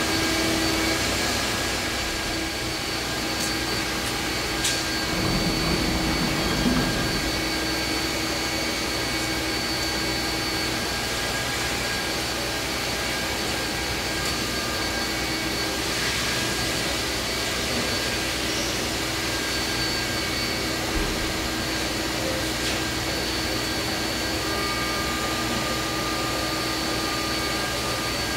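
Fadal VMC4020HT vertical machining center running: a steady mechanical whirring hum with a few constant tones held under it.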